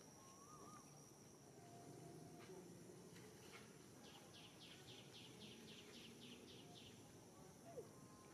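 Faint outdoor ambience of insects and birds: a thin high insect whine that stops about a second and a half in, then a call of about a dozen quick repeated notes, about four a second, from about four to seven seconds in.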